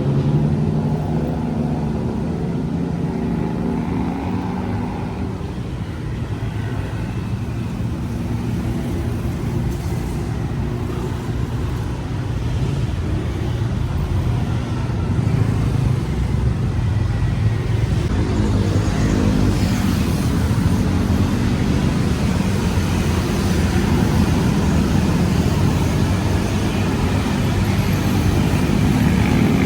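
City road traffic: a steady rumble of car and motorbike engines, with individual vehicles swelling as they pass.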